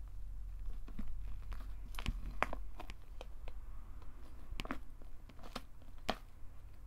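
Cloud slime, slime made with instant-snow polymer, being stretched and torn apart by hand, giving soft crinkly tearing and crackling with irregular sharper snaps, the loudest about two and a half seconds in.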